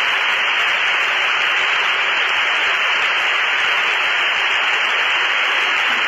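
Steady hiss of radio static on an open radio channel between transmissions.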